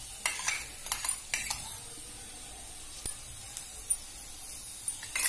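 A steel spoon clinking lightly against a non-stick tawa as it presses a paratha frying in oil, over a faint sizzle. There are a few quick clinks in the first second and a half and another couple near the end.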